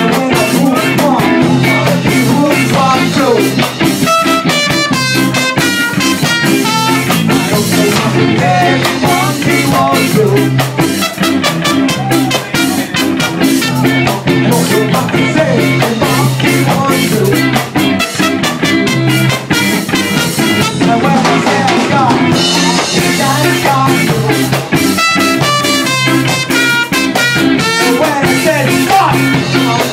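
Live ska band playing: electric guitar and drum kit keeping a steady, upbeat rhythm, loud and continuous.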